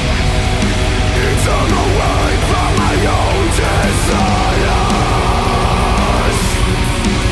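Black metal music: a dense, loud, unbroken wall of band sound, with a higher wavering, gliding melodic line on top from about a second in until shortly before the end.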